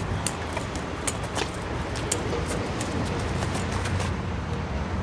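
Outdoor street ambience: a steady low traffic rumble with many scattered sharp clicks and ticks.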